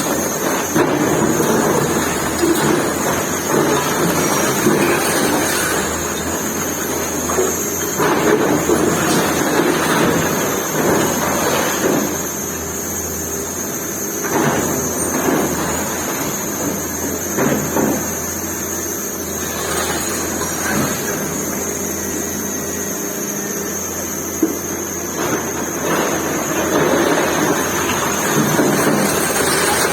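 Excavator's diesel engine running under load while its bucket tears into a building, with repeated crashes and clatter of falling masonry and debris.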